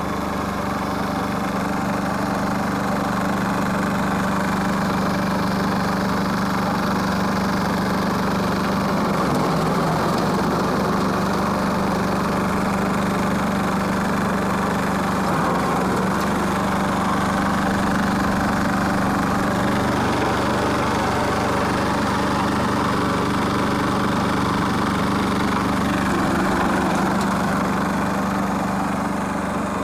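Wood chipper running steadily, its drone briefly dipping and wavering about four times.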